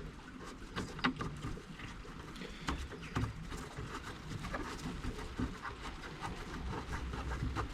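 Irregular light clicks and knocks of hand work on the boot lid: the latch cover being settled and small cap screws fitted, over a low background rumble.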